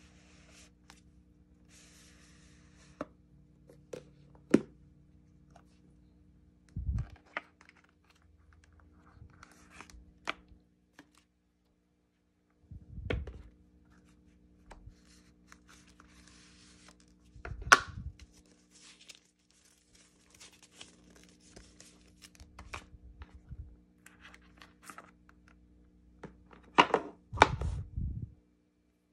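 Apple Pencil 2 cardboard packaging being handled: papery rustling and sliding as the box and paper insert are drawn out, with scattered dull knocks as pieces are set on the desk. Near the end, a quick flurry of clicks and knocks as the pencil is lifted out of its tray.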